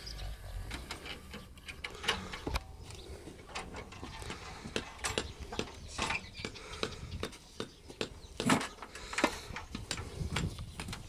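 Irregular clicks and knocks from a camel's cart harness, its chains, metal fittings and wooden shafts, as it is handled. The two loudest knocks come a little over eight and nine seconds in.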